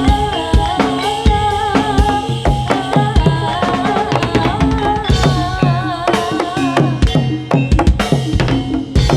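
Live Javanese gedrug music: kendang hand drums, including the small ketipung, beat a quick steady rhythm, with a wavering melodic line on top.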